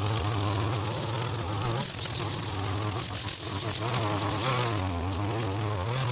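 Strimmer running as it cuts long grass: a steady buzz whose pitch wavers up and down as the load on the cutting head changes.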